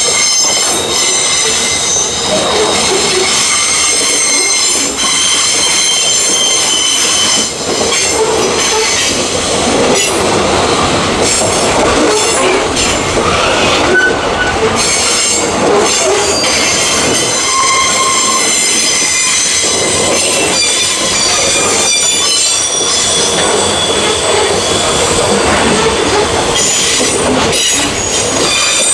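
Freight train of covered hopper cars rolling past on a curve, its wheels squealing against the rails in several steady high tones, over the rumble and clatter of the wheels on the track.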